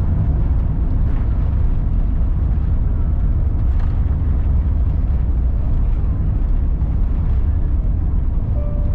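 Steady low rumble in the cabin of an Airbus A350-1000 rolling along the ground after landing, its engines at low power. A brief steady tone sounds near the end.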